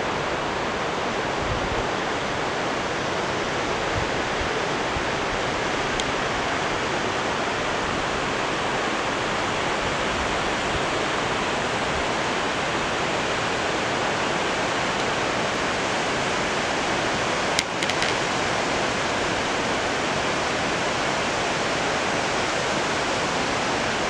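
Steady rush of a shallow mountain stream running over stones, with one brief click about two-thirds of the way through.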